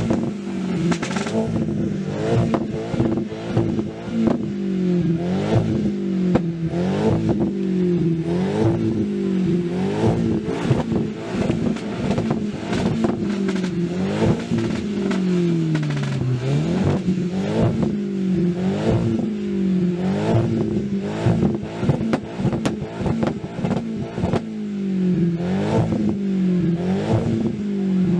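A Mk1 SEAT Leon hatchback's engine is revved over and over through its single large exhaust tip. Its pitch rises and falls about every one and a half seconds, with sharp crackles in between.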